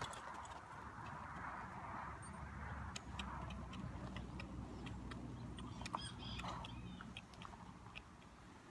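A horse walking on a dirt arena and coming to a halt: faint, scattered ticks and soft steps from its hooves and tack, over a low steady rumble.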